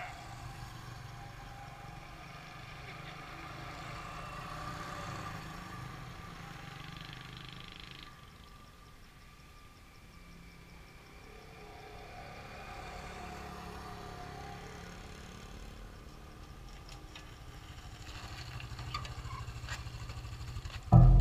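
Small motorbikes and scooters riding past, their engines swelling and fading away one after another over a steady low rumble. A few clicks and then a sharp knock come right at the end.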